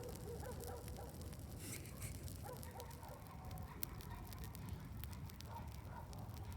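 Wood bonfire crackling faintly, with scattered sharp pops and snaps over a low steady rustle.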